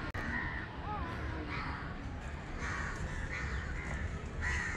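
Crows cawing, about half a dozen harsh calls a second or so apart, over a low steady rumble.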